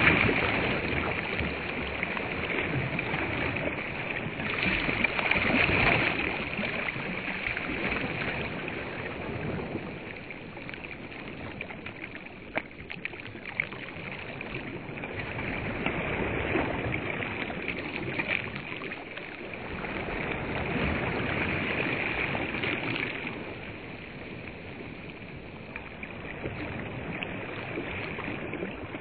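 Small waves lapping on a sandy reservoir shore, swelling and fading in slow surges, with a couple of sharp clicks near the middle.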